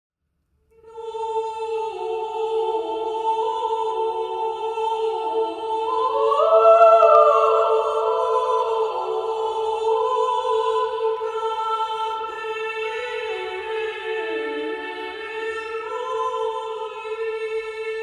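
The podcast's opening theme music: slow, sustained held notes over a steady drone, with a slowly moving melody above, starting about a second in.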